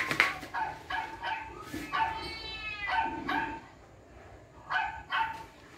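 Dog barking and yipping in short bursts, with one longer drawn-out call about two seconds in, then two more short barks near the end.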